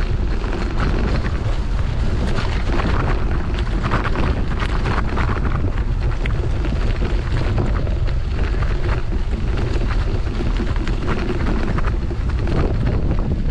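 Heavy wind buffeting the microphone: a constant low rumble with dense crackling and rattling over it.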